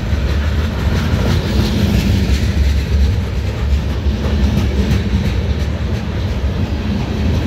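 Freight train's centerbeam flatcars rolling past: a steady rumble of steel wheels on the rails, with scattered clicks from the rail joints.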